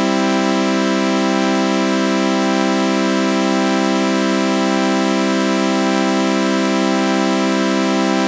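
A held chord of sawtooth synthesizer tones run through a flanger, droning steadily without a break, with a faint slow wobble repeating every second or so.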